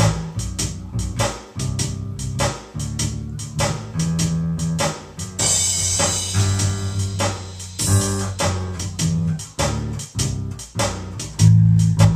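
Five-string Ibanez SR535 electric bass plucked, playing a line of low notes that change about every half second, over a backing track with drums and a cymbal crash about halfway through.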